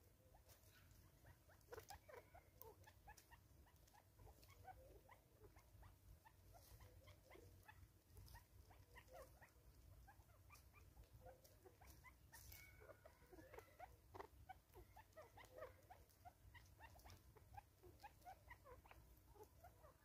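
Faint sounds of Natal spurfowls and a Smith's bush squirrel feeding on grain on a rock: many soft short chirps and ticks, several a second.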